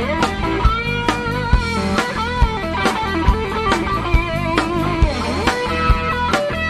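Live blues-rock band playing an instrumental passage: an electric guitar lead with bending notes over a steady drum beat.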